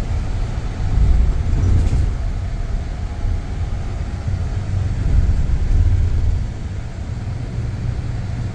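Motor vehicle running with a heavy, steady low rumble, typical of road traffic or riding in a moving vehicle.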